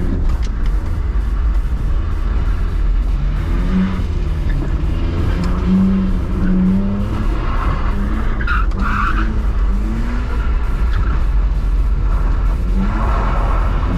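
BMW E46 320i's M54B22 2.2-litre inline-six revving up and down repeatedly as the car is drifted. There is tyre skid noise from the wet surface, strongest about two-thirds of the way through and again near the end.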